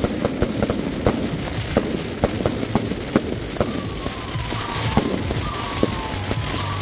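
Firecrackers and ground fireworks going off in sharp, irregular bangs, several a second, over a constant hiss and crackle. From about halfway a falling whistle-like tone joins in and repeats about every half second.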